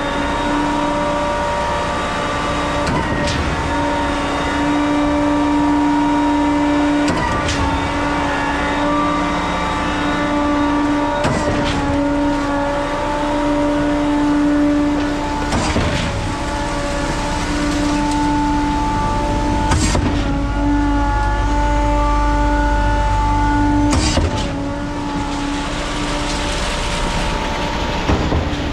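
Putzmeister 56Z truck-mounted concrete boom pump running under load: a steady hydraulic whine over the engine, broken by a sharp knock about every four seconds as the pump changes stroke. Near the end a rushing hiss joins in, as concrete slides from a mixer truck's chute into the pump hopper.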